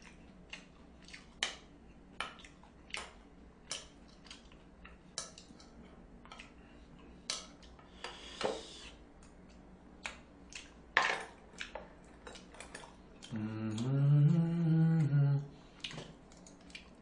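Chopsticks and utensils clinking and tapping irregularly against a metal tray, plate and bowls while someone eats, with a short scrape about eight seconds in. Near the end a man's drawn-out hum, rising then falling in pitch, lasts about two seconds and is the loudest sound.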